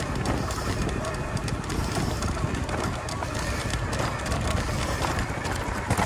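Steady low rumble with many small knocks and rattles from a Yamaha YPJ-TC e-bike riding over a rough forest trail.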